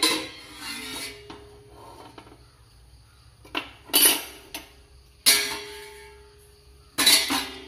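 Stainless steel kitchen vessels, a steel ladle and a mesh strainer knocking against each other: about six sharp metallic clanks, several of them left ringing.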